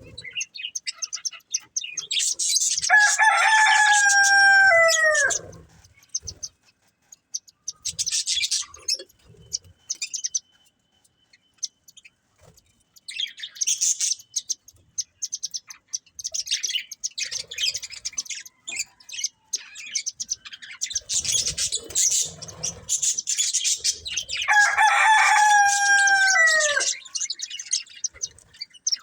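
Budgerigars chirping and chattering in quick, high clusters. Twice, a louder, lower, drawn-out bird call rises over the chatter and falls in pitch at its end.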